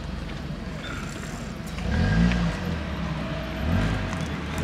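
A car engine running close by, its pitch rising and falling, loudest about two seconds in.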